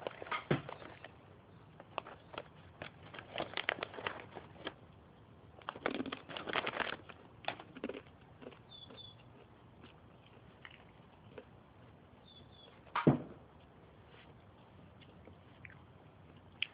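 Crunchy trail mix being chewed close to the microphone, in crackly bursts over the first several seconds. One sharp knock comes about 13 seconds in.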